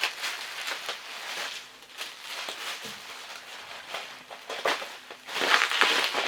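Packaging rustling and crinkling as a wrapped item is handled and unwrapped, with scattered small clicks and a louder stretch of rustling near the end.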